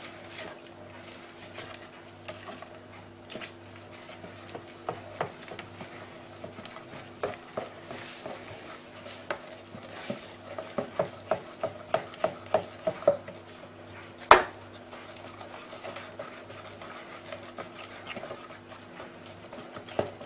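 A spoon stirring thick flour-and-water batter in a plastic tub, scraping and clicking against the sides. A little past the middle comes a quick run of taps, about four a second. About two-thirds of the way through there is one sharp knock, over a faint steady low hum.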